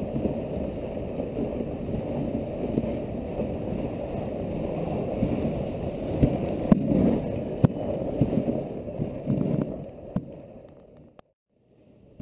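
Dog sled running along a snowy trail: a steady rushing, rumbling scrape from the runners and the moving sled, with a few sharp knocks from the sled frame in the middle. It fades away to silence near the end.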